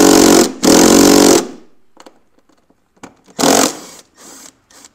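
A cordless power driver backing out the screws of a DME box cover: the motor runs in two short bursts in the first second and a half, then once more briefly about three and a half seconds in.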